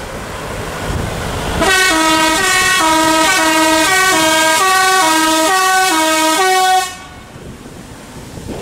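Truck's musical air horn playing a tune of short notes stepping up and down, starting about two seconds in, running for about five seconds and cutting off sharply.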